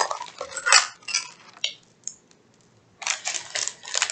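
Small metal hanging chain clinking and rattling as an acrylic pendant is handled: a few short clinks, a brief pause about two seconds in, then a run of jingling near the end.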